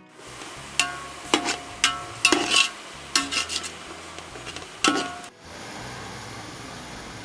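Steel spatula scraping and clanking against a large aluminium pot as shredded cabbage and carrot are stirred over the heat, with a steady sizzle under it. The pot rings on each knock, about six times in the first five seconds, then only the sizzle goes on.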